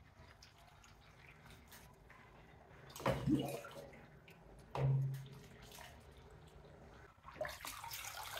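Water poured faintly from a small jug onto orchid bark in a plastic pot, then, about seven seconds in, a steady rush of water draining out of the pot's bottom holes and splashing into a plastic bowl. Two brief, louder low sounds come around three and five seconds in.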